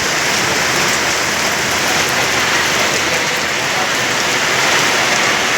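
Rain falling steadily: a dense, even hiss with no let-up.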